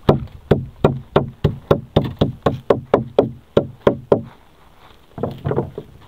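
Rapid series of sharp knocks on the hull of a small fishing boat, about three a second for some four seconds, then a short, quicker cluster of knocks near the end.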